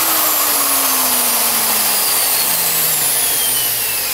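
Bosch GSB 20-2 impact drill's brushed motor running free at speed: a loud, steady whir with faint tones that slowly sink in pitch. It runs on freshly replaced carbon brushes; the owner says its armature is somewhat worn, but it runs well.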